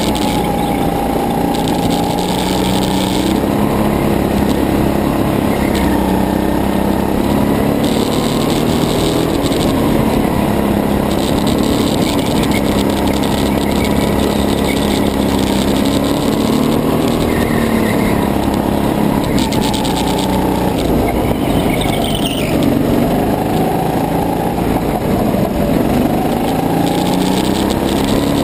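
Go-kart engine running at racing pace, its note rising and falling as the kart accelerates out of corners and lifts into them. It is heard close up from a camera mounted on the kart, with a lot of vibration.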